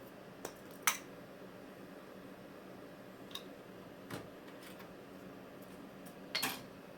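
A running desktop PC's steady fan hum, with a few sharp clicks and taps of hardware being handled: the loudest about a second in and a quick cluster near the end.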